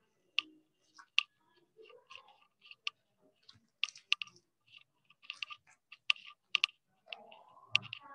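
A duster wiping a whiteboard: irregular short clicks and taps with brief scrubbing strokes.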